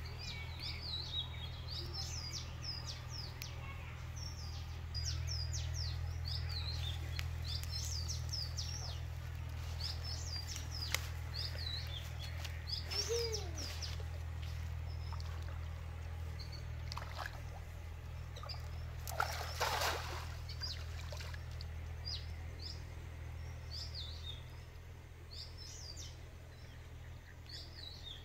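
Small birds chirping on and off over a steady low hum. About two-thirds of the way in comes a brief splash, a cast net landing on the pond water.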